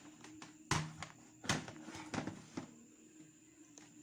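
A few knocks and clicks of hard objects being handled on a tabletop, the two loudest about three quarters of a second and a second and a half in.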